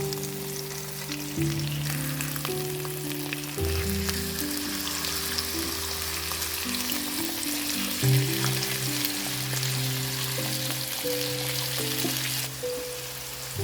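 Food frying in a skillet with a steady sizzle, growing stronger about two seconds in and cutting off abruptly shortly before the end, over background music.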